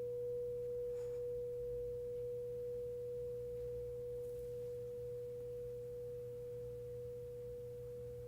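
Singing bowl ringing with one steady, pure tone that slowly fades.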